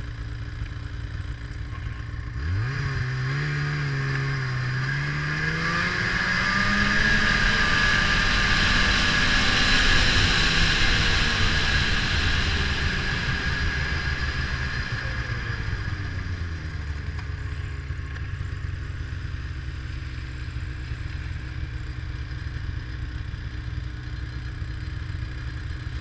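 Ski-Doo snowmobile engine idling, then revving up about two seconds in as the sled pulls away. Its pitch climbs and holds high while it runs along the trail, then falls back to a steady idle a little past the middle.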